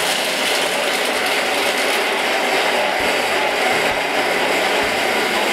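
Thermomix food processor running at speed 5, its blade grinding a dry mix of pine nuts and spices in the steel bowl with a steady, very loud noise. This is the early chopping stage: the noise changes once the mix is ground.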